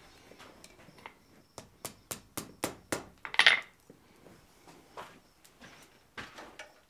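Blacksmith's tools handled at the anvil and vise: a quick run of about six sharp clicks, then a hammer laid down on the anvil with a short scrape about halfway through, and a few faint knocks as a hot round bar is set into a bending jig.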